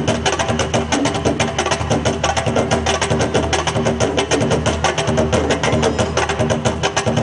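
Live Afro-Peruvian festejo percussion playing a fast, dense rhythm of rapid strokes over a steady low drum tone.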